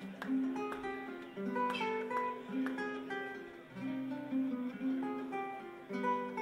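Amplified acoustic guitar playing a galliard live: a quick plucked melody over lower bass notes.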